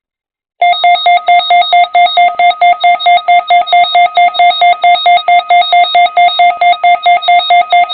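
Electronic emergency-alert tone from Emergency Alert System equipment: a loud, rapid pulsing beep of several tones repeating about four times a second, starting about half a second in and cutting off abruptly near the end.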